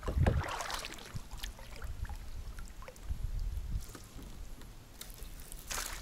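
Low knocks and handling bumps on a kayak, with scattered small clicks, and a short rush of splashing water just before the end.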